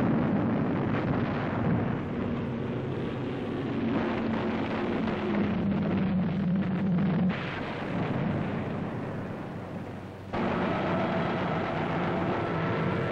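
Wartime newsreel battle sound: a dense, continuous rumble of anti-aircraft fire and explosions, with a low drone thickening through the middle. It breaks off sharply about seven seconds in and again about ten seconds in. After that a plane's engine drone, with a steady whine, takes over.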